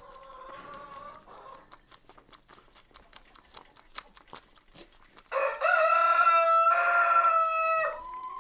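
A rooster crowing once, a long drawn-out call starting about five seconds in and lasting nearly three seconds. Before it, faint soft clicks of a lamb sucking on a bottle nipple.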